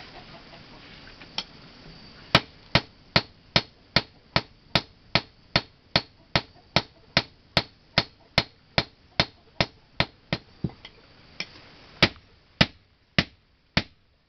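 Blacksmith's hand hammer striking metal on an anvil in a steady rhythm of about two and a half sharp, ringing blows a second, forging a sickle blade. The hammering pauses briefly near the end, then starts again.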